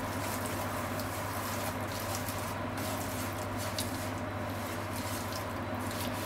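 Ground pork sizzling in sesame oil in a frying pan while wooden chopsticks stir and break it up, with short clicks and scrapes of the chopsticks on the pan. A steady low hum runs underneath.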